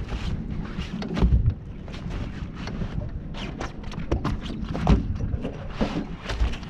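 Irregular knocks, taps and rustles of a flathead being held down and handled on a measuring mat on a boat deck, with wind rumbling on the microphone.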